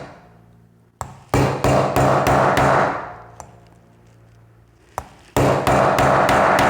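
Rapid hammer blows, about five a second, on a steel padlock in two runs with a pause between them, driving at the rivet pin that holds the lock shut. A low hum from a spring in the workbench rings on after each run of blows.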